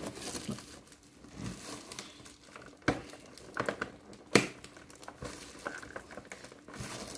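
Packing tape and cardboard of a shipping box being pulled and torn open by hand: crinkling and tearing with a few sharp snaps, the loudest a little after four seconds in.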